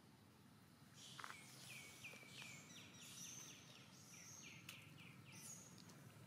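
A bird calling faintly: a quick series of high notes, each sliding downward, about four a second, starting about a second in and stopping shortly before the end.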